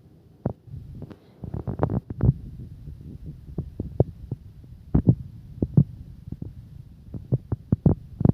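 Irregular soft thumps and taps over a low steady hum: handling noise from a towel being folded and shaped by hand.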